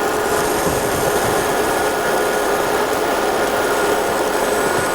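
Laser engraving machine running as it engraves: a steady hum and hiss, with a thin steady whine above it.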